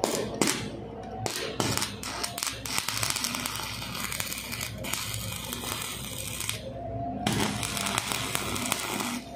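Stick-welding electrode struck against steel. A few sharp taps give way to a steady crackling, sizzling arc, which breaks off briefly about seven seconds in and then strikes again. The arc now holds because the weak mains supply has picked up a little.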